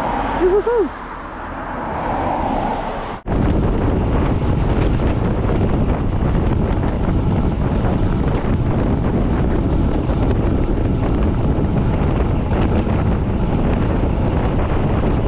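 Wind rushing over the microphone of a bicycle-mounted camera on a moving road bike, steady and loud, starting abruptly about three seconds in. Before that, road noise swells and a couple of short tones rise and fall.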